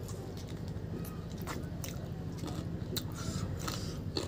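Close-up mouth sounds of chewing a handful of rice and chicken curry eaten by hand, with scattered wet clicks, over a steady low hum.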